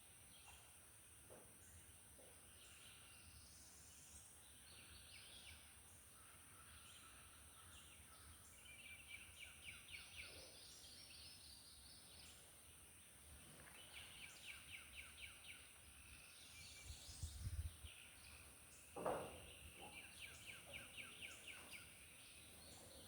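Faint bird song: several phrases of rapid, evenly repeated high notes. There is a low thud about seventeen seconds in and a sharper knock shortly after.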